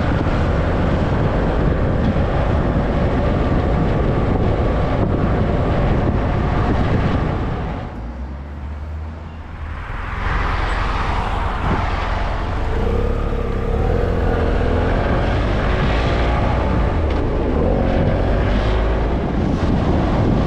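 Vehicle driving along a road: steady engine and tyre noise that eases off briefly near the middle, then the engine picks up again with a rising pitch.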